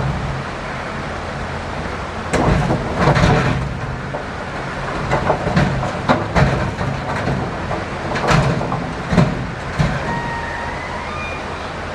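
Caterpillar excavator's diesel engine running steadily under load while river stones knock and clatter in irregular bursts as the bucket digs and handles rock.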